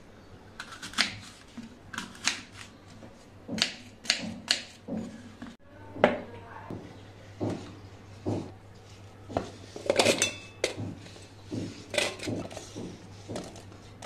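Kitchen knife chopping apples on a wooden cutting board: irregular sharp knocks. Later, apple pieces tipped from the board clatter into a stainless steel blender jar, the densest clatter coming about two-thirds of the way in.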